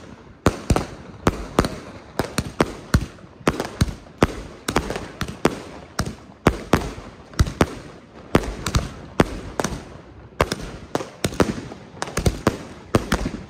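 XB4100 Air Force One Triplex fireworks compound cake firing its 1.2-inch shots: a continuous, irregular volley of sharp bangs, often in quick clusters, about two to four a second, each with a short echo.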